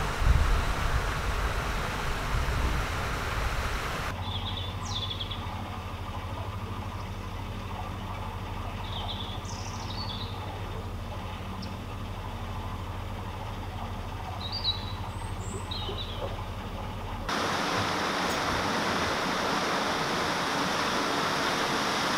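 An electric narrowboat's drive hums steadily as the boat cruises, while birds chirp a few times over it. Before the hum there is a rough rush like wind on the microphone, and near the end it gives way to a steady rushing hiss.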